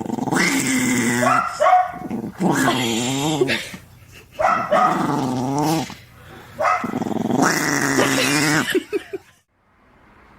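A dog vocalizing in a run of about five long, wavering growl-howls, each one to one and a half seconds long, falling quiet near the end.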